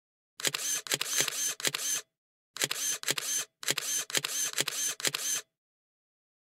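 Camera shutter sound effect: rapid clicks in three bursts, each cutting off abruptly into dead silence, like a camera firing in burst mode.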